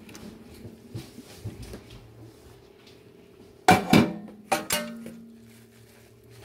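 Metal cookware clanking in a stainless steel sink: four sharp knocks in two quick pairs about four seconds in, the metal ringing briefly after them, as pots are handled while draining spaghetti.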